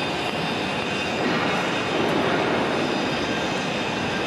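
Steady, unbroken machine noise from a small automatic welding carriage running along the edge of a steel beam.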